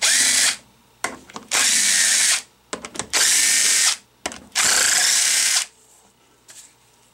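Power driver with a socket extension spinning out the bolts of a Hydro-Gear hydrostatic pump's valve body, in four bursts of about a second each.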